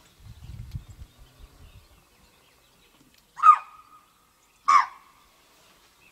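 Two loud, short, harsh animal calls about a second and a half apart, after a faint low rumble in the first two seconds.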